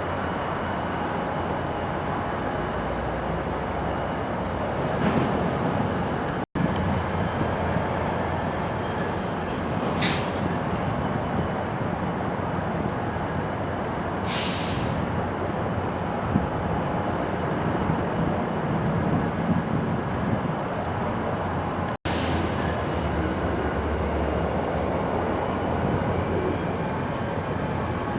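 Freight rail equipment moving through a yard: a steady rumble of locomotive and rolling cars, with faint high wheel squeal drawn out in thin wavering tones and a few short high squeals. Two split-second gaps break it.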